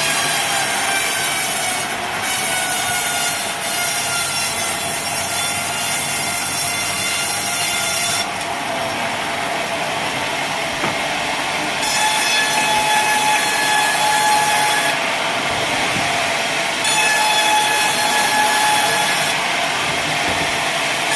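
Sawmill blade cutting through a log of wadang wood, a steady loud rasp with a high whine. The tone of the cut shifts every few seconds.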